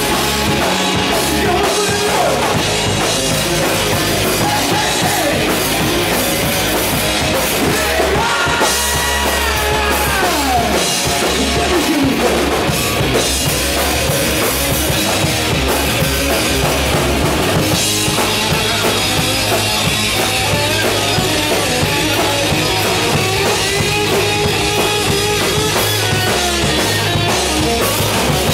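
Live hard rock band playing loud and steady: two distorted electric guitars, one an SG-style and one a Les Paul-style, with bass guitar and a full drum kit driving a steady beat.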